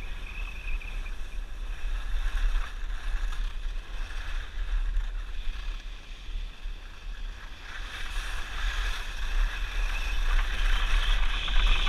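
Wind buffeting the microphone of a body-worn action camera as a skier glides downhill, with the hiss of skis scraping over packed snow, which grows louder from about eight seconds in.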